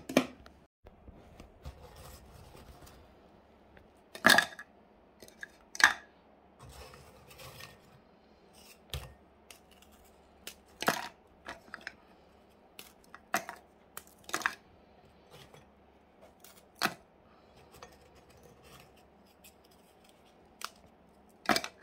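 Crisp biscuits being snapped apart by hand, a sharp crack every second or few, with pieces dropping into a plastic food-processor bowl.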